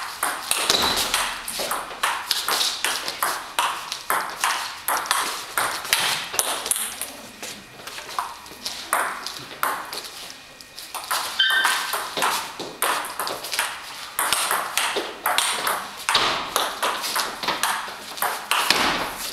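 Table tennis ball in a long rally, clicking off the bats and the table in a quick, uneven rhythm of many sharp ticks.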